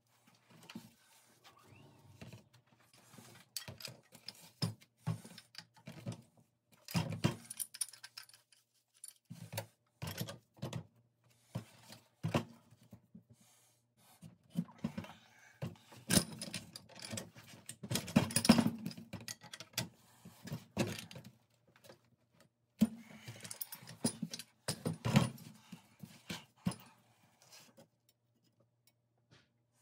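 Black iron pipe fittings being handled and tightened with two pipe wrenches: irregular metallic clinks, knocks and scrapes as the wrenches grip the fittings and the pipe and tools are set down on the table, under a faint steady low hum.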